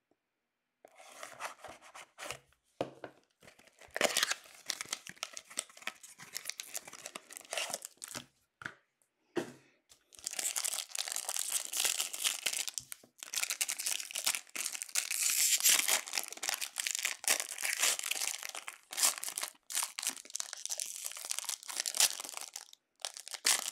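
A cardboard hockey-card hobby box being handled and opened, with scattered scratches and taps, then foil card-pack wrappers tearing and crinkling, dense and near-continuous from about ten seconds in.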